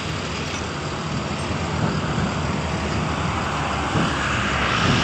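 Truck engine running with a steady rumble, growing gradually louder as it approaches.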